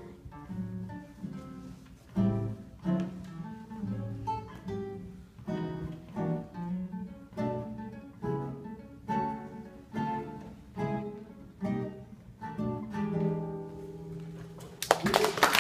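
Two nylon-string acoustic guitars playing a duet, chords and plucked notes struck in a steady rhythm. About a second before the end, loud applause breaks out.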